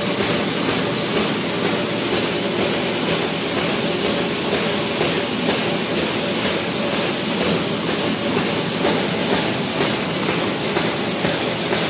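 Automatic square-bottom paper bag making machine running at speed, a steady rhythmic mechanical clatter.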